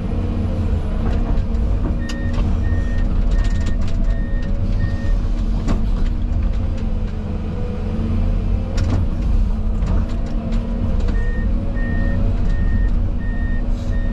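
Heavy diesel plant engines running steadily, with a reversing alarm beeping about twice a second in two spells, from about two seconds in and again from about eleven seconds in, and a few sharp knocks.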